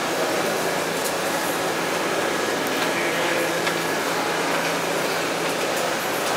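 R68 subway train standing at the platform with its doors open, its air-conditioning and onboard equipment giving a steady hum and hiss.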